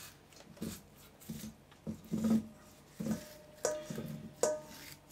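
Filleting knife working along a salmon's backbone on a wooden board: a series of short scrapes and knocks, roughly one every half second to a second. From about three seconds in, several of them are followed by a brief ringing tone.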